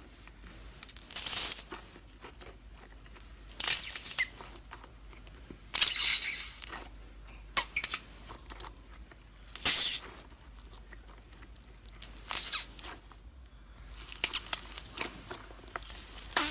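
Slime being squeezed and worked by hand, giving about eight short, irregular crackly bursts.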